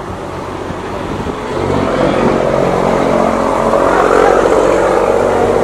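A motor engine running steadily, growing louder from about a second and a half in.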